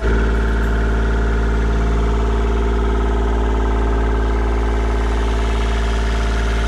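A sailboat's inboard diesel engine running at a steady, even speed, heard up close in its engine compartment; it is running really good.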